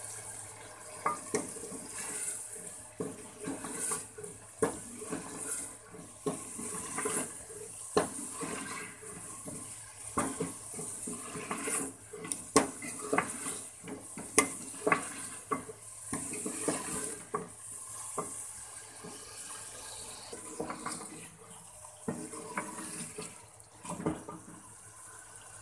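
Long-handled cooking spoon stirring chicken curry in an aluminium pot, working freshly added ground spices into the masala. Irregular clacks and scrapes against the pot sound over a steady sizzle of the wet gravy.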